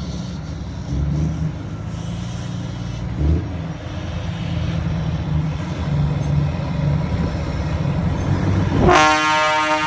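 Volvo FH semi-truck diesel engines with aftermarket exhausts rumbling steadily. About nine seconds in, a loud truck air horn blasts for about a second.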